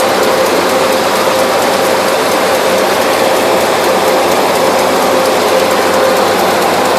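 Ford 4x4 truck on the move: loud, steady running noise with a constant whine and a light clatter.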